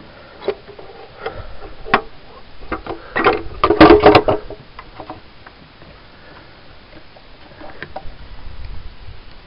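Irregular clicks and knocks of hands handling parts in a car's engine bay, loudest in a quick rattling cluster about three to four seconds in.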